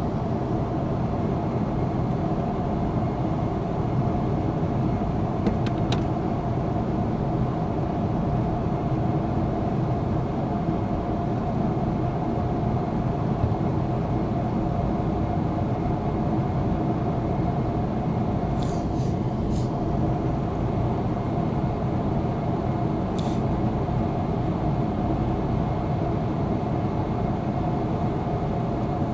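A steady, continuous engine drone with a low hum and a constant tone. A few faint clicks come through about six seconds in, and again around nineteen and twenty-three seconds.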